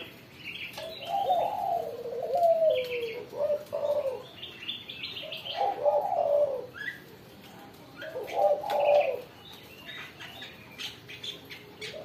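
Spotted doves cooing: a few low, falling coo phrases with pauses between them, about a second in, around six seconds and around nine seconds.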